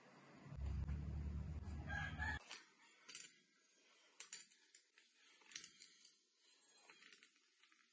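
A loud background call for roughly the first two and a half seconds, then a metal spoon clinking and scraping lightly against a small glass bowl in short, scattered ticks as cinnamon sugar is stirred.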